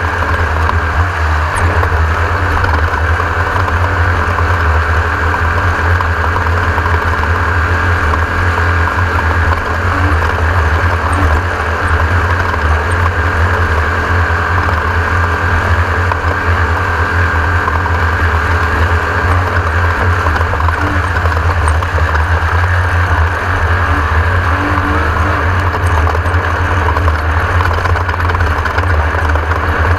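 Class 1600 off-road race buggy's air-cooled VW 1600 cc flat-four engine running loud and steady under racing load, with a strong low drone.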